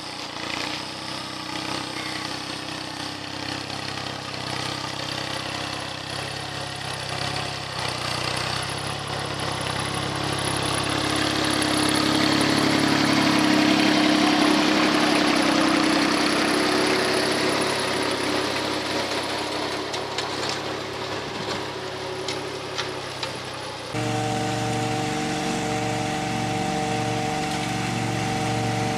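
Small compact tractor engine running as it pulls a disc harrow through the soil, growing louder to a peak about halfway through and then easing off. About 24 s in it changes abruptly to the steady, even hum of a riding lawn mower's engine.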